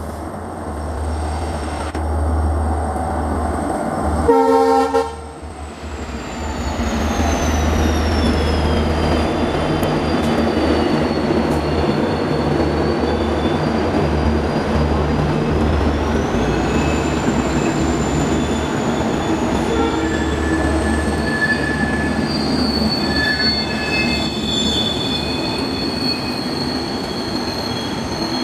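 WDP4D diesel locomotive passing at speed with a steady low engine rumble, sounding one short horn blast about four seconds in. Then comes the continuous rush of the passenger coaches' wheels on the rails, with a thin high squeal that wanders down and back up in pitch.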